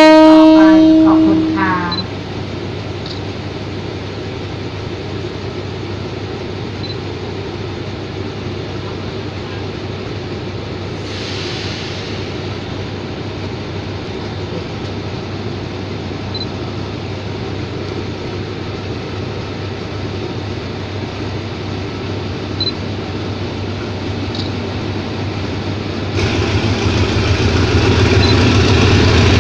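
A diesel locomotive's horn cuts off and rings out over a second or two. Then the locomotive's engine runs steadily as the express train pulls out, with a brief hiss about eleven seconds in. The engine grows louder and heavier near the end as the locomotive draws closer.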